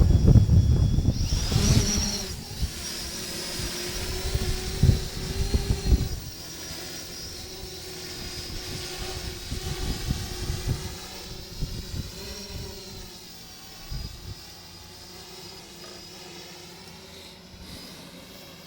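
Yuneec Typhoon H hexacopter's motors and propellers humming in flight, the pitch bending up and down as it manoeuvres and fading as it moves away. Wind buffets the microphone during the first several seconds.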